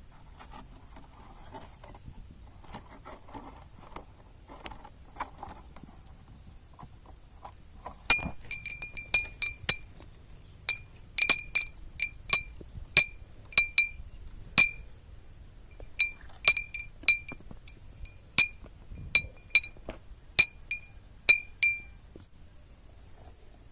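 A metal piece being struck over and over, each strike a sharp clink that rings at the same clear pitch. The strikes start about a third of the way in and come irregularly, roughly once or twice a second, some in quick pairs, stopping shortly before the end.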